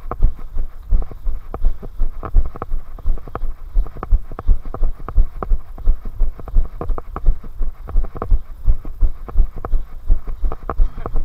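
Running footsteps on a paved path, about three strides a second and very regular. Each footfall lands as a dull thump with a sharp scuff on top, from the runner carrying the camera.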